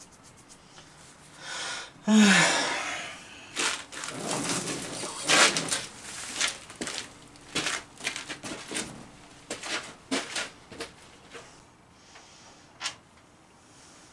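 Irregular metallic clinks, knocks and rattles of tools and parts being handled on the bandsaw's lower blade guide assembly, with a short breathy vocal sigh about two seconds in.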